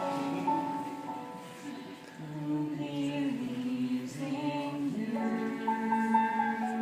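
Music: the closing bars of a musical-theatre song, with long held sung or sustained instrumental notes.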